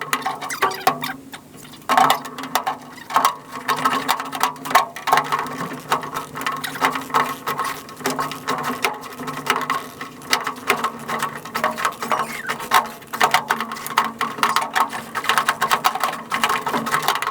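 Fast, continuous clicking and clattering of hand tools and small metal parts as aluminium pedal-mount brackets are worked into place, over a steady low hum.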